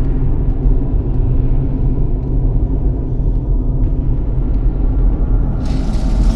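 A steady, deep rumbling drone, heaviest in the low bass, with a sharp hissing rush coming in near the end.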